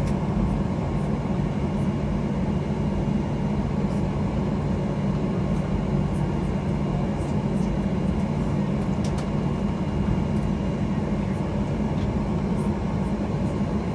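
Steady low drone inside a jet airliner's cabin while it taxis, from the engines at idle and the cabin air system.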